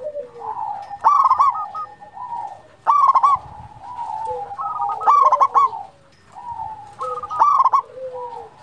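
Zebra dove (perkutut) singing its rapid, rolling coo in four loud phrases about two seconds apart, with softer cooing in between.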